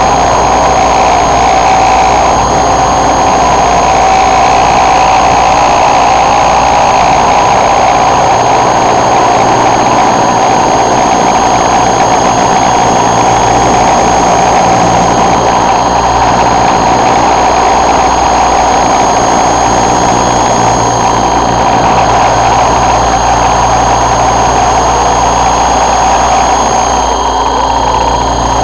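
Raptor E550 electric RC helicopter's motor and rotor running steadily in flight: an even, loud whine with high steady tones over a low rumble of wind.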